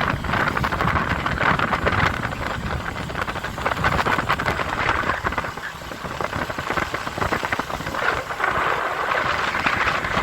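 Wind rushing over the microphone together with the running engine and road noise of a moving vehicle: a steady hiss over a rough low rumble that eases off briefly around six seconds in.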